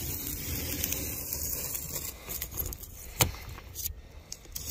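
Utility knife blade scraping and cutting through styrofoam insulation and wood along a camper bunk's frame: a rough scratchy sound, with a few sharp clicks in the second half.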